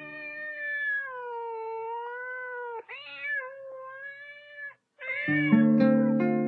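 A cat meowing in three long, drawn-out calls, its pitch wavering. About five seconds in, a sustained musical chord builds up under the third call and is the loudest part.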